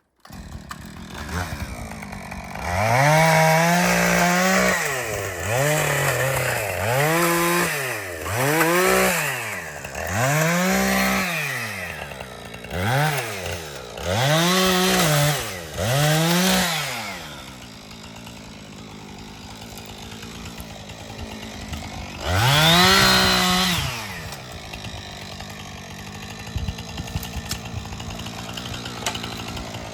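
Chainsaw engine revved up and back down again and again, about eight times in quick succession, then settling to a lower idle. It is revved once more about two-thirds of the way through.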